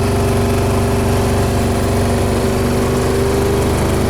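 A vehicle's engine running steadily, a constant drone that holds the same pitch throughout.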